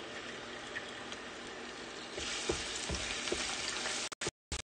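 Minced garlic sizzling in olive oil in a shallow metal pan, stirred with a spatula that knocks lightly against the pan. The sizzle gets louder about two seconds in, and the sound cuts out for a moment near the end.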